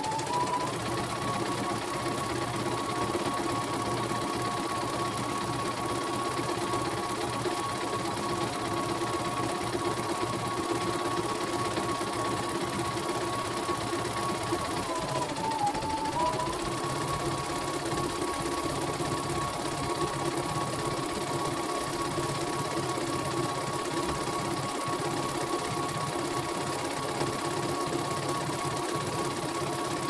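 Computerized home embroidery machine stitching a design, sped up to double speed. It runs with a steady high whine, which dips in pitch briefly about halfway through and then picks up again.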